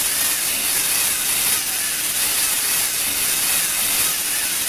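Lego NXT servo motors driving a Lego Technic scissor lift through its plastic gear train: a steady, hissy whirr that runs without a break and stops abruptly just after.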